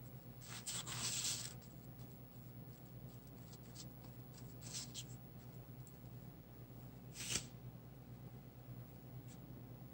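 Small flat paintbrush stroking a wet medium onto paper: faint scratchy brushing, loudest about a second in, with a few lighter strokes later and one short sharp tap about seven seconds in, over a steady low hum.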